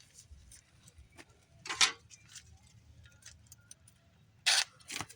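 Small metal clicks and rattles of drill bits being handled in their plastic case, with two louder clacks, one about two seconds in and one near the end.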